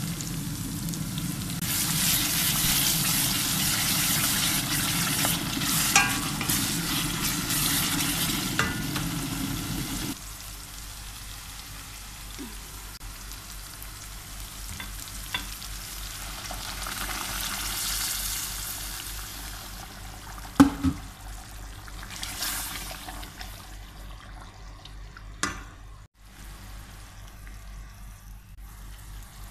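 A red sauce, the base of shiro wot, sizzling as it fries in a steel pot while a wooden spoon stirs it, with a few sharp knocks of the spoon against the pot. The sizzling drops off sharply about ten seconds in and goes on more softly.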